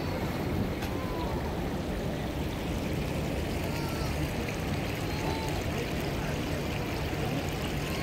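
Steady rushing, water-like noise from a misting water feature, with faint voices in the distance.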